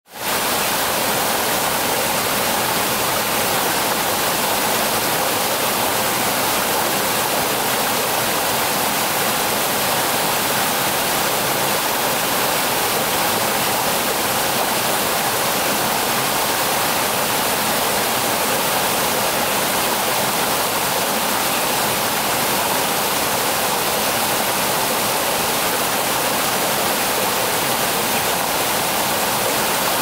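Stream water pouring over a low rock ledge in small cascades, a steady rushing splash that holds an even level throughout.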